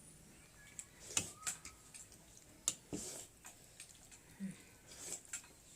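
Eating sounds from a bowl of noodle soup: scattered short wet slurps and mouth sounds, with a few sharp clicks of utensils against the bowl.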